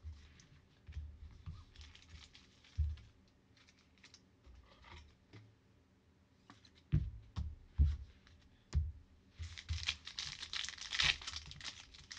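Trading cards being handled and set down on a table mat with light clicks and a few soft knocks; from about nine and a half seconds in, the foil wrapper of a Prizm football card pack crinkles and tears as it is pulled open.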